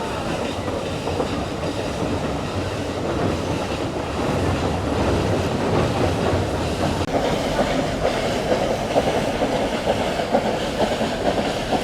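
Nilgiri Mountain Railway train, steam-hauled on the rack-and-pinion climb above Kallar, running with a steady rumble and clatter of wheels on the rails. From about seven seconds in, a quick run of sharp clicks comes in and the sound grows a little louder.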